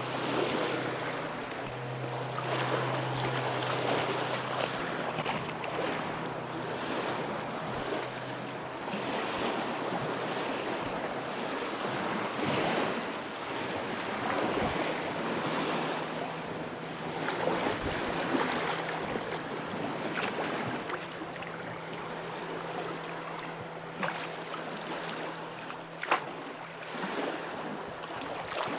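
River water rushing past and lapping against a gravel bank in swells every couple of seconds, with wind buffeting the microphone. A faint steady low hum runs beneath, and a few brief clicks come near the end.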